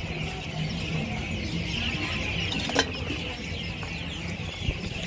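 Som tum being worked in a mortar with a wooden pestle and metal spoon: low knocks and scraping over a steady background hiss, with one sharp clink a little under three seconds in.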